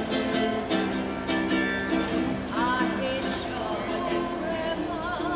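E.L. Woodworks traditional tenor ukulele being strummed in a steady rhythm, with a woman singing along.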